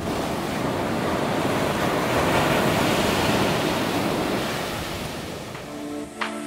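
Ocean surf washing onto a beach, a steady rush of water that swells and then fades away. Music begins near the end.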